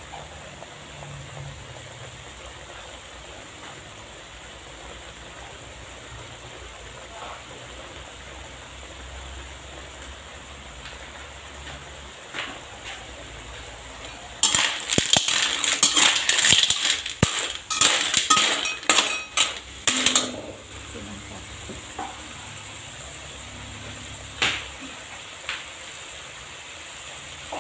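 Metal spatula stirring clams in their shells around a metal wok: a dense run of scraping and clattering shell-on-metal clinks for about six seconds in the middle, with a few single clinks before and after. A faint steady hiss from the cooking runs underneath.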